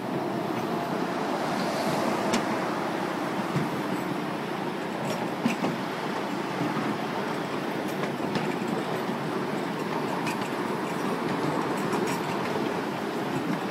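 Miniature ride-on railway train running along its track, heard from on board a passenger car: a steady rumble of wheels on the rails, with occasional sharp clicks.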